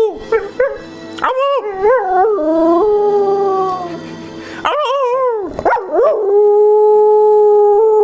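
Beagle-spaniel cross dog howling in a singing way: a string of wavering, warbling howls with short yips between them about half a second in, then one long held howl from about six seconds in.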